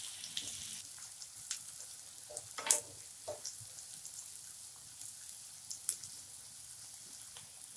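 Chopped onions sizzling in hot oil in a non-stick pan as they are stirred with a spatula, sautéing on a medium flame to soften and lightly brown. A few sharp clicks sound over the steady sizzle, the loudest about two and a half seconds in.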